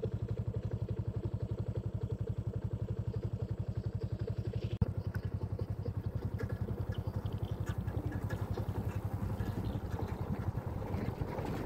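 Small motorcycle engine running at a steady low speed with an even, fast pulse. There is a single sharp click about five seconds in.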